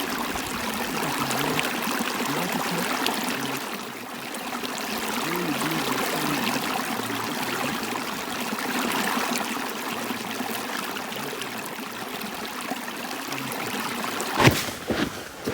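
Stream water running steadily in an even rush. A single sharp knock comes near the end.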